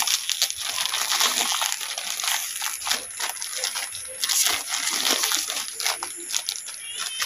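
Plastic packet of misua noodles crinkling and rustling in the hands as it is handled and torn open, a run of many small irregular crackles.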